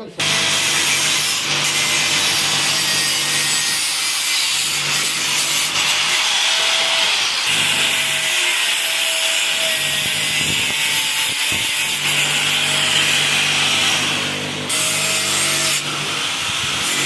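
Handheld angle grinder with a cutting disc, cutting steadily through material. The harsh grinding noise starts suddenly and holds, with a wavering whine over it, and eases briefly about fifteen seconds in.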